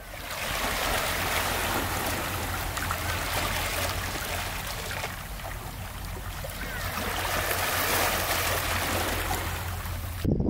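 Small sea waves lapping in among shoreline rocks, the water trickling and splashing steadily over and between the stones. It stops abruptly just before the end.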